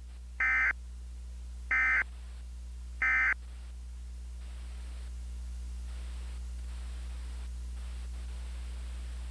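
Emergency Alert System end-of-message SAME data bursts: three short, harsh digital bursts about 1.3 seconds apart, signalling the end of the alert. After them, a steady low hum with faint hiss.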